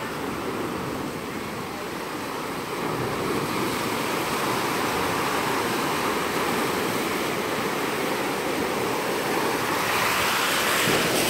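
Ocean surf washing in, foaming water rushing over the beach and against a rocky headland with sea caves. Steady, getting louder near the end as a bigger wave surges in.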